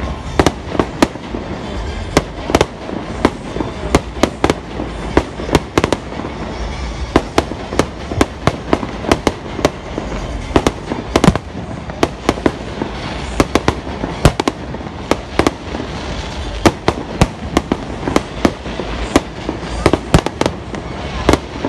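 Fireworks display: aerial shells bursting in a continuous string of sharp bangs and crackles, several a second, over a steady rumble.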